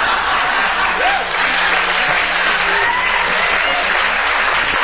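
Studio audience applauding steadily after a comedic punchline, with a few voices over it.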